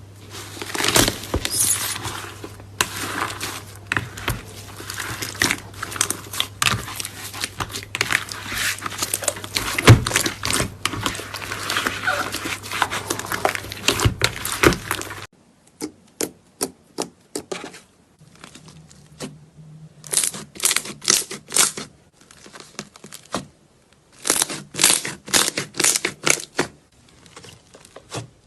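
Slime being squeezed and worked by hand, giving dense crackling and popping clicks over a low steady hum. About halfway through the hum stops suddenly, and after that the crackles come in short separate bursts.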